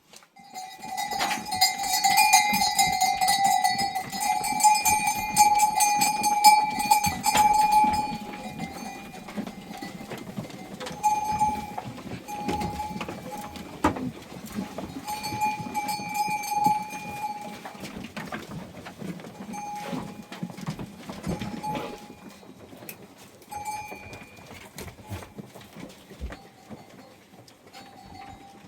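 Bells on a herd of goats clanging as the animals move, a steady metallic ringing that is loudest in the first several seconds and then comes and goes, growing fainter.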